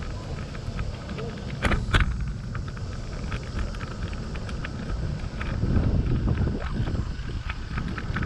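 Wind rumble on the microphone and road noise while riding a bicycle, with two sharp clicks about two seconds in.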